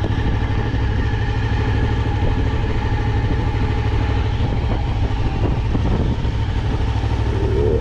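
Suzuki V-Strom 650's V-twin engine running steadily near idle as the bike is ridden at walking pace in a tight slow-speed circle.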